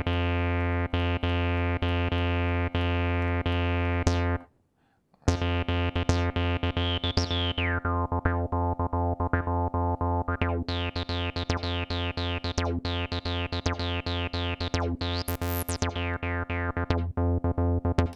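TB-303-style acid bass line from a Roland TB-303 or its TB-03 recreation: a sequenced synth bass note repeating several times a second. It stops for about a second around four seconds in, then restarts with the resonant filter sweeping up and down.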